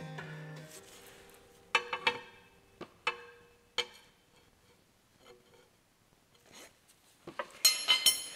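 Sharp metallic taps on a motorcycle wheel rim, each with a short ring, about half a dozen spread over a couple of seconds, then a quick flurry of louder ringing clinks near the end. Background music fades out at the start.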